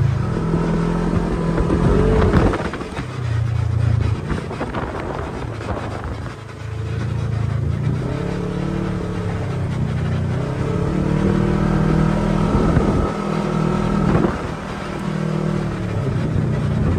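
Side-by-side UTV engine running while driving on a dirt trail, its pitch rising and falling as the throttle is opened and eased off, with a few brief drops in level.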